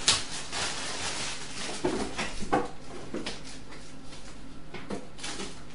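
Plastic accessory bag crinkling and rustling as it is torn open by hand and modular power-supply cables are pulled out, with a few irregular crackles and soft knocks.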